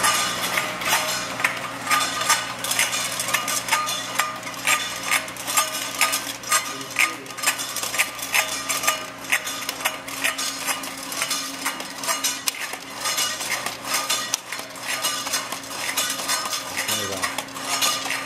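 Round metal lids clinking and clattering against each other and the steel machine as a conveyor feeds them into a stacking machine: repeated sharp clinks, a few a second, over a steady hum.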